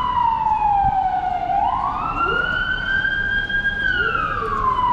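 Emergency vehicle siren wailing: the pitch slides slowly down, sweeps quickly back up about two seconds in, holds high, and starts sliding down again near the end, over a steady low rumble.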